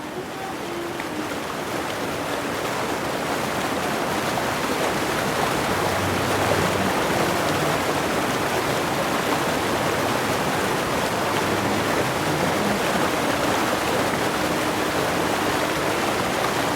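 Fast-flowing stream water rushing over rocks, a steady even wash of sound that swells in over the first few seconds.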